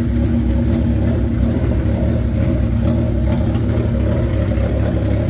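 1989 Suzuki GSX-R1100's oil-cooled inline-four idling steadily through a Vance & Hines Sidewinder exhaust, loud and even, with no revs.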